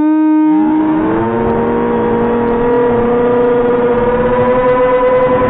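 A whistling firework going off close by: a shrill whistle glides up in pitch, rises again about a second in, then holds steady over a rushing hiss.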